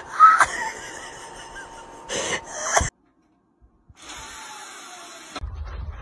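A cat hissing, two sharp hisses in the first three seconds. After a short dead gap, a steady low rumble starts near the end.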